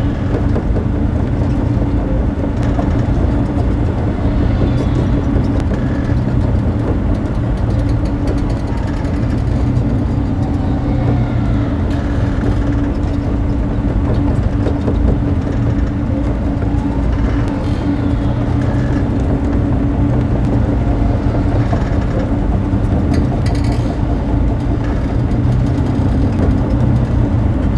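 Clone Turbo Tank (HAVw A6 Juggernaut) exterior engine sound effect: a steady low engine drone with a held hum, looping without change in level, with faint wavering higher whines over it.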